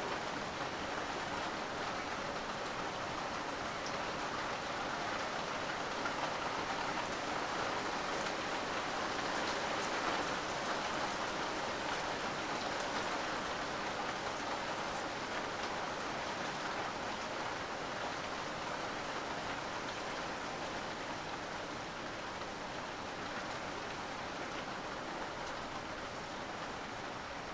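Steady rain falling, with a few faint single drops ticking now and then; it swells slightly about ten seconds in and eases a little toward the end.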